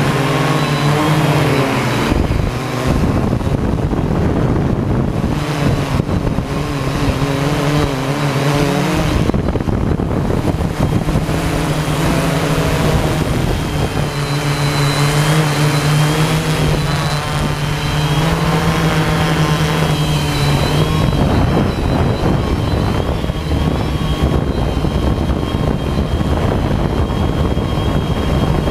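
Small multirotor drone's electric motors and propellers whirring steadily, the pitch shifting up and down as it flies, with a noisy rush of air.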